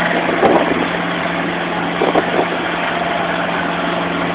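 Small motorboat's engine running steadily with a constant hum, over a wash of water and wind noise.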